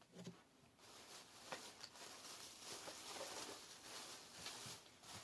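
Near silence: faint room tone with a few soft, light ticks.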